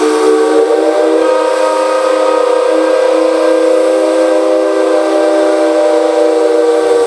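Whistle of steam locomotive D51 2 sounding one long, steady blast: a loud chord of several tones held together.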